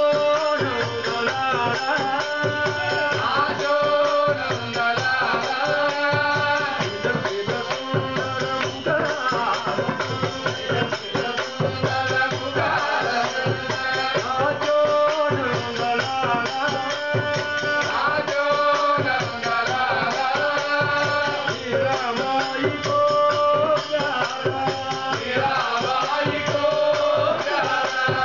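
A group of men singing a South Indian devotional namasankeerthanam bhajan in unison, with a drum and small hand cymbals keeping a steady beat under a held drone note.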